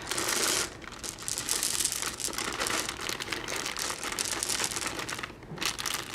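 Plastic candy packaging crinkling continuously as candy is handled and pushed into a crocheted toy, with a short pause near the end.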